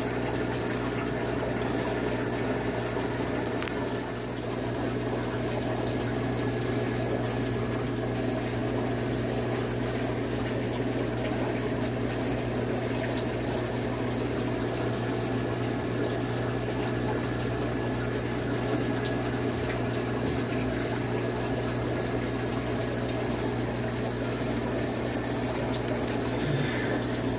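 Aquarium pump running: a steady hum over constant water churning and bubbling in the tank.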